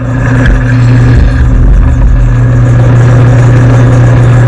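Old belt-driven metal lathe running under power while the tool takes a cut. Its electric motor gives a loud, steady hum.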